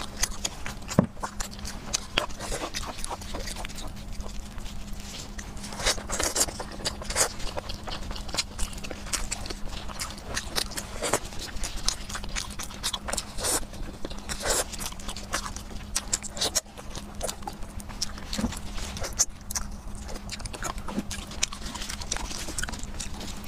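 Close-miked wet chewing and lip-smacking of braised pork trotter meat and fat, with irregular sticky clicks and smacks. A faint steady low hum runs underneath.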